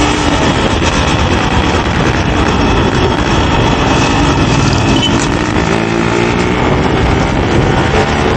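Yamaha RX-series 135 cc two-stroke single-cylinder motorcycle engine running under way as the bike is ridden, heard from the rider's seat.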